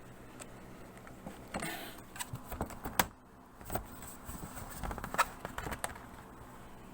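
Scattered sharp plastic clicks and knocks with a short scrape about one and a half seconds in, the loudest click about three seconds in: a laptop being handled and flipped while its bottom case is worked loose.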